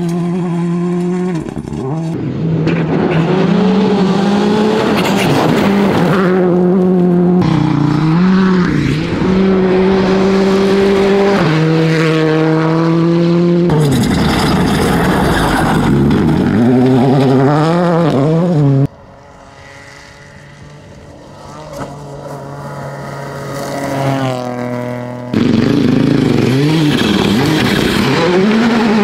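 Rally cars at full speed on gravel stages, engines revving hard, the pitch rising and falling through gear changes and corners, with several passes cut together. About two-thirds through, the sound suddenly drops to a car heard from further off that builds as it approaches, then jumps back to a loud engine near the end.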